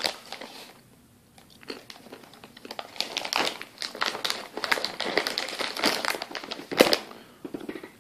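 A plastic bag crinkling and rustling as it is handled, in dense crackly bursts that thicken after the first couple of seconds, with the loudest crackle about seven seconds in.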